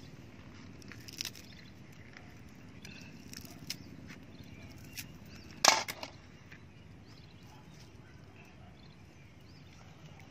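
A knife knocks sharply against the rim of a metal cooking pot about two-thirds of the way through, with a couple of lighter clicks after it, as chopped coriander is scraped off the blade into the curry. A few scattered soft clicks and a steady low outdoor background fill the rest.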